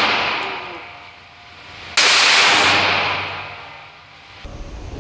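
A single shot from an FN SCAR Light 5.56 mm rifle about two seconds in, with a long echoing decay in the indoor range. The dying echo of an earlier shot fills the start, and a fainter report comes near the end.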